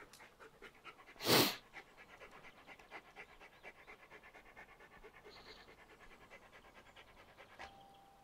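Border Collie cross panting softly, with one louder puff of breath about a second in.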